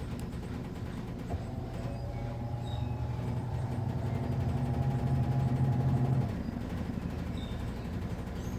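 Midea Wave-Agitator top-load washing machine running mid-cycle. Over a steady background hum, its motor starts with a click about a second in, hums for about five seconds while getting a little louder, then stops suddenly.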